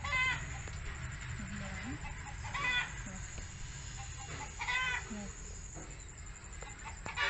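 Short, high-pitched animal calls repeating about every two seconds, four in all, over a low steady background noise.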